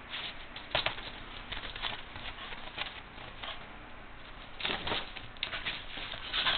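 A corgi and a cat scuffling together on an upholstered couch: irregular scratchy rustles of paws and bodies on the fabric, with a louder flurry about three-quarters of the way through.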